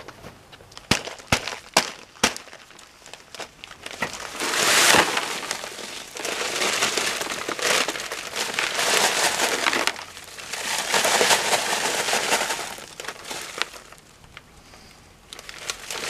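Dry concrete mix being poured from its bag into a plastic tub, the bag crinkling and the powder rushing out in several long pours. A few sharp clicks come about a second in.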